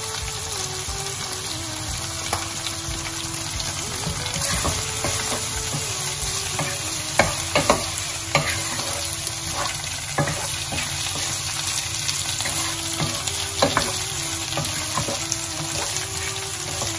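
Spiced chicken pieces sizzling as they fry in a pot. From about seven seconds in, a wooden spoon stirring them scrapes and knocks against the pot.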